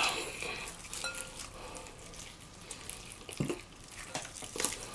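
Hands pulling apart a whole rotisserie chicken: soft tearing of the meat and skin with many small crackles and clicks, and a brief louder sound about three and a half seconds in.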